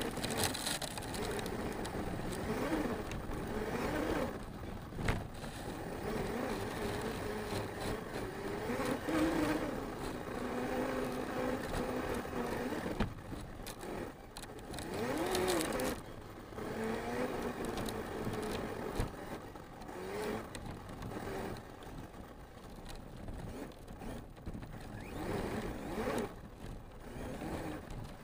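Arrma Mojave 6S RC truck's electric motor and drivetrain whining, the pitch rising and falling again and again with throttle, over tyre and chassis noise on rough dirt and grass, with a few sharp knocks from bumps.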